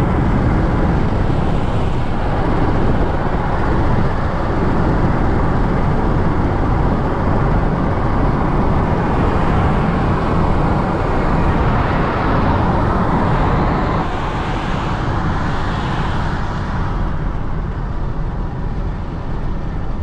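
Stock V6 2015 Chevrolet Camaro driving at speed, heard inside the cabin: a steady, dense blend of engine, tyre and wind noise. It grows quieter near the end.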